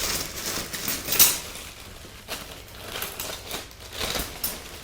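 Metal tools clinking and rattling as they are handled and rummaged through, in a series of irregular clinks and knocks.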